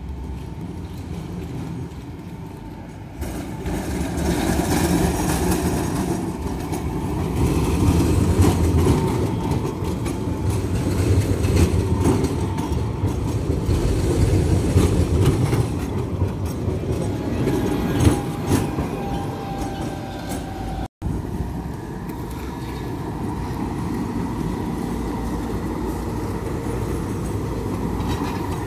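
Tram running on its rails: a steady rumble that grows louder about three seconds in, with a faint falling whine over it. A sudden cut about two-thirds of the way through is followed by a quieter steady rumble.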